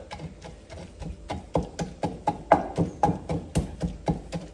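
Wooden pestle pounding garlic in a wooden mortar: a steady run of knocks, about four a second, getting louder about a second in.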